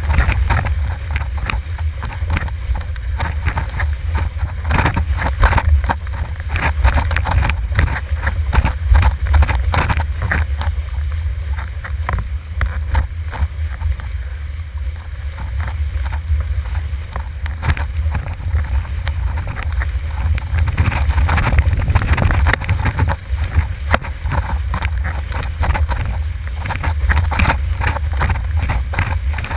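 Wind buffeting an action camera's microphone on a sailing windboard, a steady low rumble, with the board slapping and hissing over choppy water in quick, irregular splashes.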